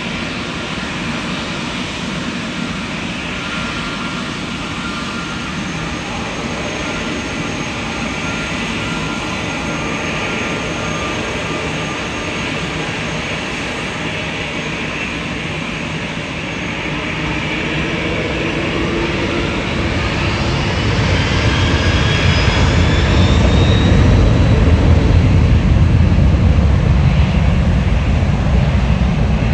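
Jet engines of a FedEx MD-11F trijet freighter: a steady whine over jet noise that grows louder over the second half, as a deep rumble builds and whining tones glide upward.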